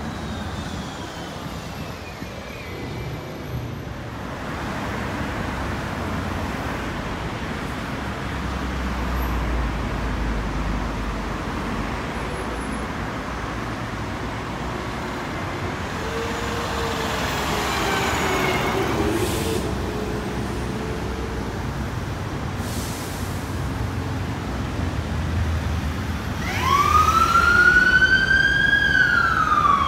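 City street and traffic noise, then about 26 seconds in a fire engine's electronic siren starts up loud: a wail that rises in pitch and then begins to fall as the pumper turns out of the station. A lower wavering tone is heard briefly midway.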